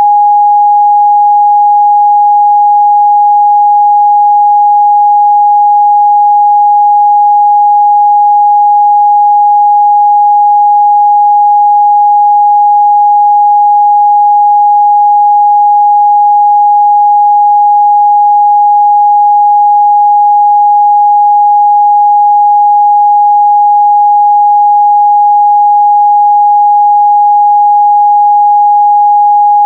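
A steady, loud 826 Hz pure sine test tone, unchanging in pitch and level, used for checking speaker and headphone midrange response.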